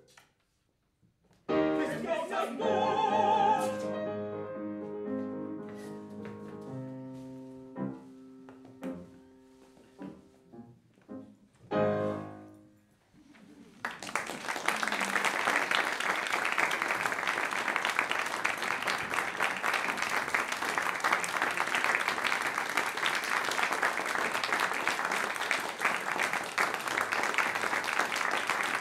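A short phrase of operatic singing with piano, then the piano alone fading to a last chord. About halfway through, audience applause starts and goes on steadily.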